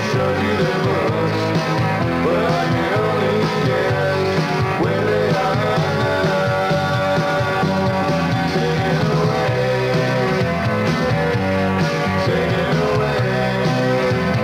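Rock band playing an up-tempo number, with electric guitars and drums, loud and unbroken.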